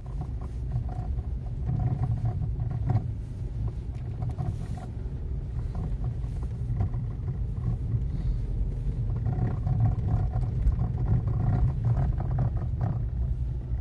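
Low road rumble inside a slow-moving Renault Mégane II, with irregular knocks from the suspension over small bumps. The owner cannot trace this knock, and one mechanic suspected the steering rods.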